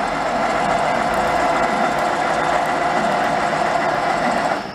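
WMW Niles DPS1 heavy engine lathe running under power, its drive and gearing giving a steady mechanical hum with a constant tone. The sound drops away sharply near the end.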